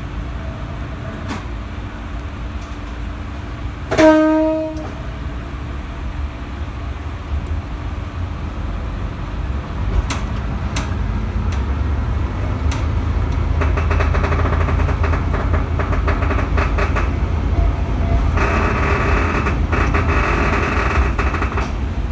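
Diesel railcar's horn sounding once, short and loud, about four seconds in, over the low rumble of the KiHa 52 and KiHa 28's DMH17H diesel engines. The engine noise then grows louder in steps as the train gathers speed.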